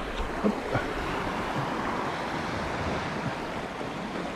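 Sea washing against a rocky shore: a steady rush of surf, with some wind on the microphone.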